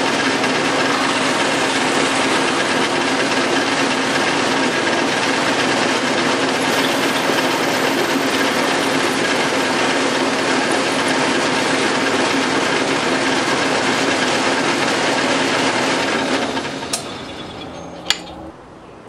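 Milling machine spindle running steadily while a number 16 twist drill cuts through a metal banjo bolt. About sixteen seconds in, the sound fades away as the drill finishes the through-hole, followed by a couple of sharp clicks.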